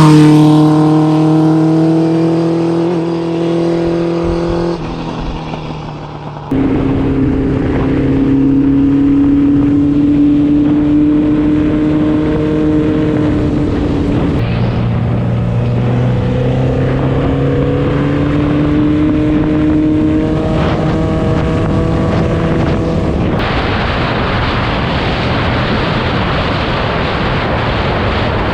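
1978 Honda CB750 Four F2's inline-four engine running, its pitch sliding slowly up and down as in riding, in short clips that cut off abruptly. For the last few seconds wind rushing over the microphone covers it.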